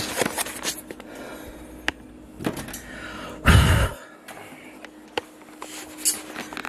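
A short puff of breath blowing out a jar candle, about halfway through, with a few light knocks around it.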